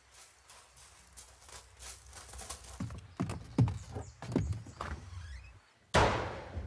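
Running footsteps knocking on wooden boards, uneven and getting louder. They break off just before a sudden loud thud about six seconds in.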